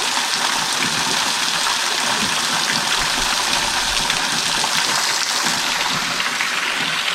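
Steady rush of falling water from a small waterfall.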